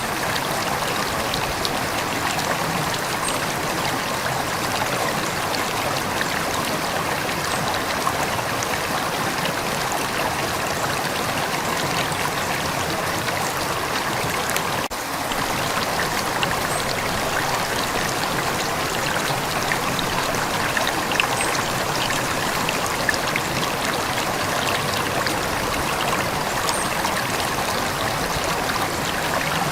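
River water flowing steadily, a continuous rushing with trickling, with a brief dip in level about halfway through.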